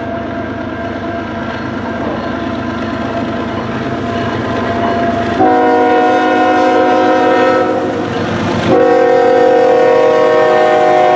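Approaching diesel locomotive of a CN intermodal train (ES44AC 2849), its engine and rolling noise growing louder. About five seconds in, its multi-note horn sounds a long blast. After a short break a second long blast begins.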